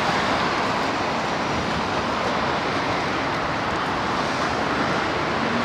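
Steady city road traffic noise: an even, continuous wash of cars on a busy street.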